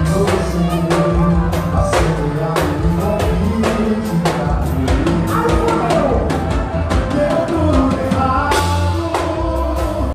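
Live forró band playing, with accordion, keyboard and a steady drum-kit beat, while a man and a woman sing a duet into microphones.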